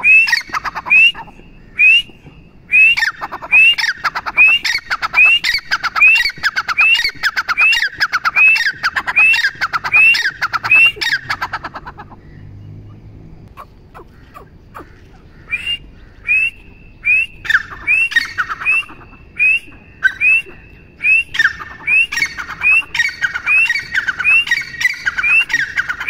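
Grey francolin (teetar) calling: a series of loud, short rising notes, about two a second. The calling stops about halfway through, then starts again a few seconds later and runs on to the end.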